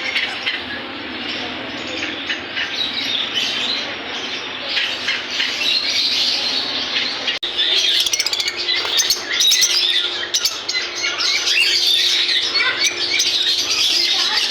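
Many caged small parrots, such as lovebirds, ringneck parakeets and cockatiels, chirping and squawking all at once in a dense chorus. There is a brief break about halfway through, after which the chatter is louder and a faint steady hum runs beneath it.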